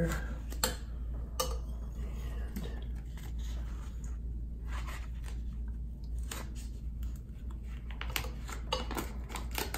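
Painter's tape being pulled, torn and pressed onto tile by hand: scattered short crackles and rips with small taps.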